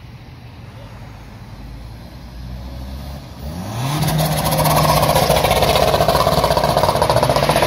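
A car accelerating hard past. A low engine rumble is followed, about three and a half seconds in, by revs climbing, then a loud, steady engine and exhaust note as it drives by.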